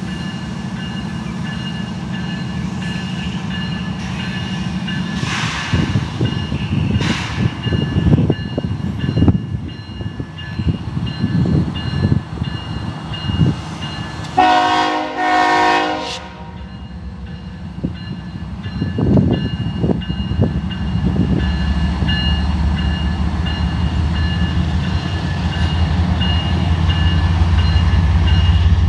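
CSX diesel freight locomotive approaching, its engine rumble growing louder toward the end. The horn sounds once, for about two seconds, about halfway through.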